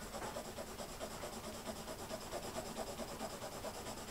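Coloured pencil scratching on sketchbook paper in quick back-and-forth hatching strokes, several a second, laying down a patch of colour.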